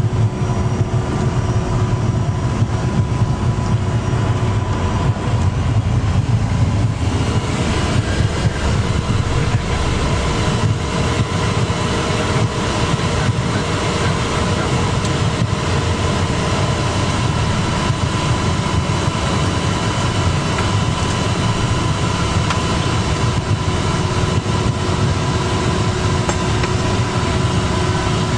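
Steady drone inside a private jet's cabin: low engine hum and airflow rumble with a few steady whining tones. A brighter rushing noise joins about seven seconds in.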